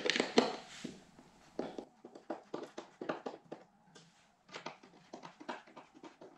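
Hand screwdriver driving small metal pins into a particleboard furniture panel: a run of short, irregular clicks and scrapes, a few a second, loudest in the first second.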